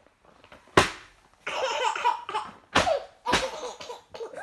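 Baby laughing in bursts, each burst set off by a sharp smack of a hand on the pages of a paper booklet. There are three smacks, and the first, about a second in, is the loudest.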